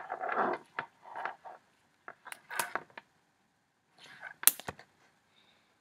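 Handling noise: rustling and a scatter of sharp clicks from small hard parts being handled, the sharpest click about four and a half seconds in.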